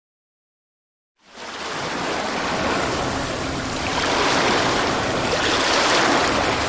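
Keyboard sound-effect patch playing a synthesized ocean-surf sound: a steady wash of noise that swells in about a second in and holds, starting to fade near the end.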